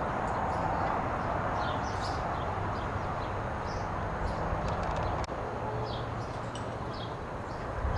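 A horse's hoofbeats, muffled in soft arena dirt, under a steady hiss and low rumble, with scattered short bird chirps.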